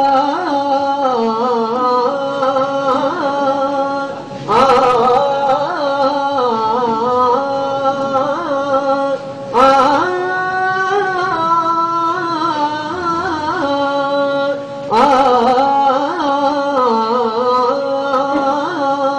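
Slow, melismatic singing on long held notes, in phrases of about five seconds, each opening with a sharp attack.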